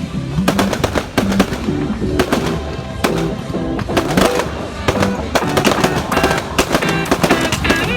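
Fireworks going off in many quick bangs and crackles, mixed with background music laid over them.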